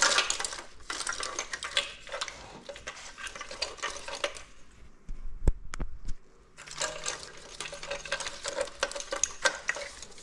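Motorcycle wiring harness being handled and routed into place: plastic-sheathed wires and connectors rustling and clicking, with a quieter pause near the middle broken by two sharp clicks.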